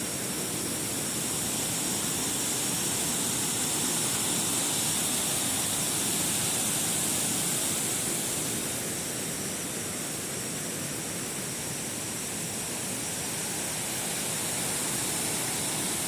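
Small waterfall's water rushing, a steady hiss that swells slightly in the middle and again near the end.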